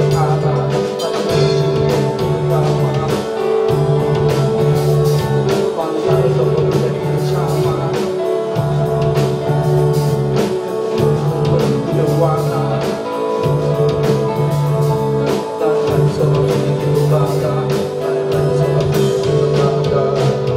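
Live rock band playing: guitar over bass and drums with a steady beat.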